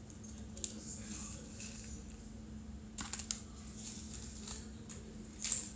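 Scissors snipping and handling small plastic packets of diamond-painting drills: a few scattered sharp clicks and crinkles, the loudest snip near the end.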